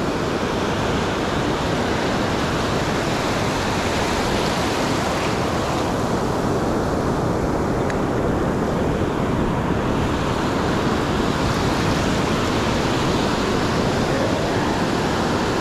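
Steady wash of ocean surf: waves breaking and whitewash running up a sandy beach, an even rushing noise throughout.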